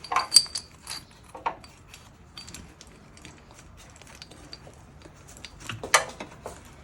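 Small metallic clicks and clinks of the freed oxygen sensor and tools being handled. A quick cluster of clinks comes in the first second, scattered light ticks follow, and there is one sharp click about six seconds in.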